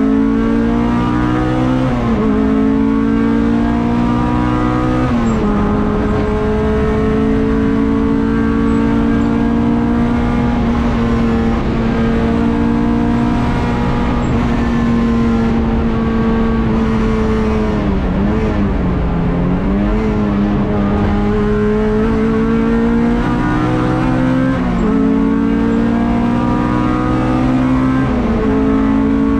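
Honda Civic race car's 1.6-litre four-cylinder engine at hard throttle, heard from inside the stripped cabin: the pitch climbs steadily and drops at upshifts about two and five seconds in, dips and recovers about two-thirds of the way through, then climbs through two more upshifts near the end.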